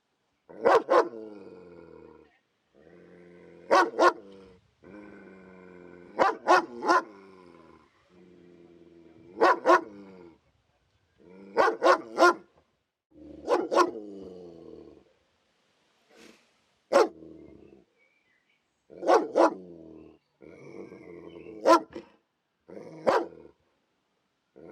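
Police dog barking aggressively in sharp single and double barks every two to three seconds, with a low growl between the barks.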